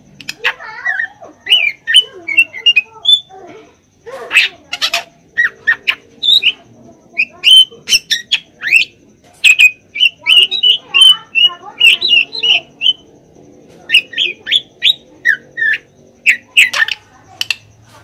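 Drongo singing a fast, varied string of short whistled notes mixed with harsh chatters and sharp clicks.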